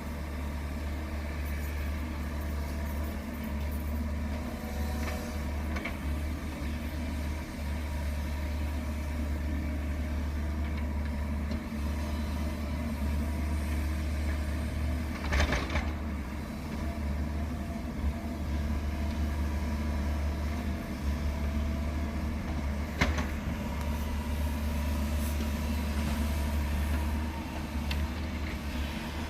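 Heavy vehicle engine running steadily at a low, even pitch, with two sharp knocks, one about halfway through and another some eight seconds later.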